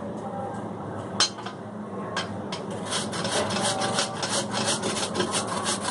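Peeled raw potato grated by hand on a flat stainless-steel grater, rasping strokes. A few separate scrapes at first, then regular strokes about three or four a second from about three seconds in.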